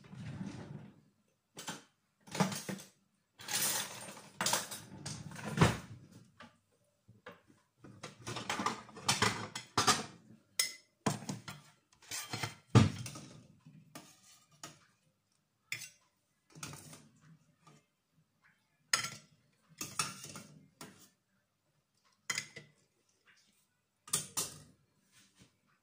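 Kitchen handling noise: a ceramic plate clinking and knocking against the counter as eggs are set down on it, in a string of short separate clatters with quiet gaps, the sharpest knock about halfway through.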